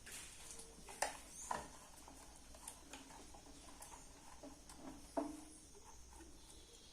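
Metal parts knocking and clinking as they are handled during an old air compressor's teardown: three sharp knocks, the last with a short metallic ring, between quieter light taps.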